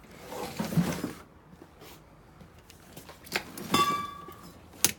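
Scraping and knocking as an object blocking a garage door's safety sensor beam is moved aside, with a short ringing tone about three-quarters of the way through and a sharp click near the end.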